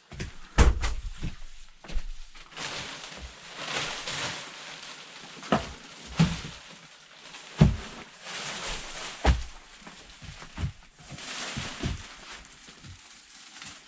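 Irregular knocks and thumps, about half a dozen spread unevenly, with stretches of rustling hiss in between.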